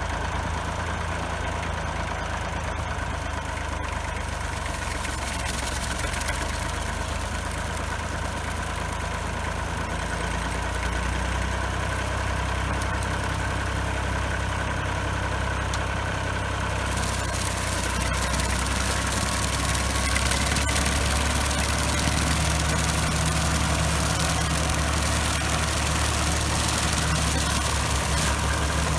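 Fordson tractor engine running steadily. Its note shifts about a third of the way in, and it grows a little louder in the second half.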